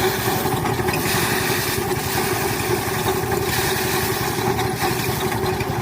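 Small engine of farm machinery running steadily at an even speed, with a fast low throb.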